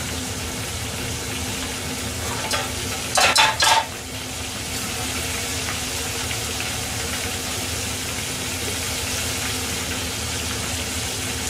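Hot oil sizzling steadily as a flounder deep-fries, over a faint steady hum. A couple of short clinks come about three seconds in.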